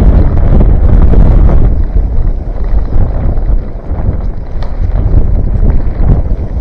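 Strong wind of about 8 to 10 m/s blasting the microphone: a loud, deep buffeting rumble that eases briefly a few seconds in, then picks up again.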